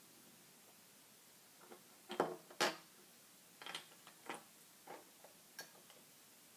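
Plastic Lego bricks clicking and knocking as they are handled and pressed together: two sharp clicks about two seconds in, then a string of lighter clicks.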